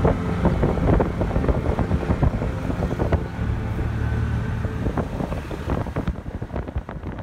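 A vehicle driving along a road: a steady low rumble with many small knocks and rattles over it. The sound fades out near the end.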